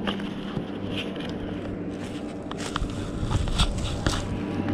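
Footsteps crunching on a gravel and stone shoreline, a handful of irregular steps, over a steady low hum.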